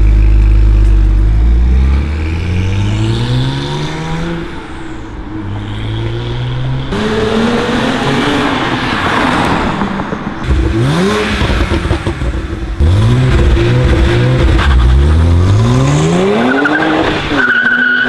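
BMW 135i's turbocharged straight-six pulling hard away, its pitch climbing, then revved in a run of short rising bursts in the second half, with a hiss of tyres scrubbing on the pavement in the middle.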